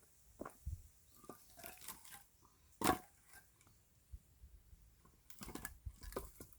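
An axe splitting firewood logs: one loud, sharp hit about three seconds in, among scattered cracks and knocks of wood.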